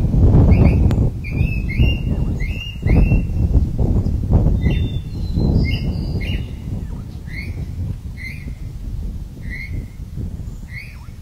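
Birds calling in the bush: a run of short, slightly falling chirps, one to three a second, coming more sparsely later on. Under them is a low rumbling noise that slowly dies down.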